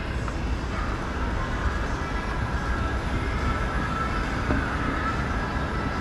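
Wind rumbling steadily on the microphone over the constant background noise of a busy street at night.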